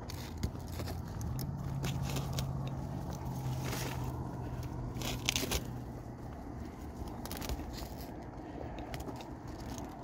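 A steady low hum from distant road traffic, starting about a second in and fading out past the middle, under scattered crackles and scrapes of footsteps and brush on a dry dirt trail.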